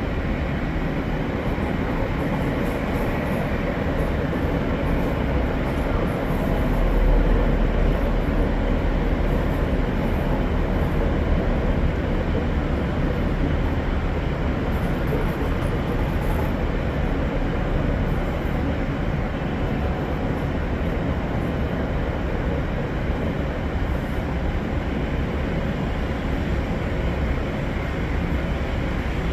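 Passenger train of empty excursion coaches running steadily past, hauled by a Class 47 diesel locomotive with a Bulleid Battle of Britain class steam locomotive trailing at the rear. There is a low, louder swell about seven seconds in.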